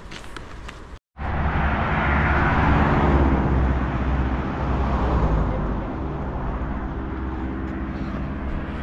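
A car drives past: engine and tyre noise come in suddenly, swell to their loudest about two to three seconds in, then ease off to a steadier, quieter engine sound.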